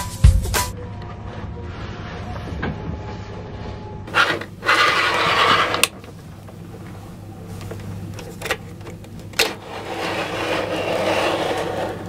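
Fabric rustling and a few light knocks as someone climbs into a plywood capsule bed and pulls its curtain across, the loudest rustle about four seconds in, over a steady low hum.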